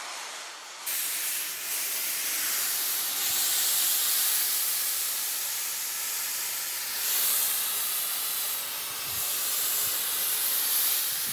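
Oxy-acetylene flame from a Victor short-barrel torch with a bent tip, hissing steadily as it is run around steel pipe on a preheat pass; the hiss gets louder about a second in.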